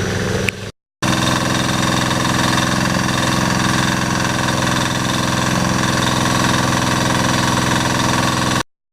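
Small engine driving a water pump, running steadily at an even speed, with a short break just under a second in.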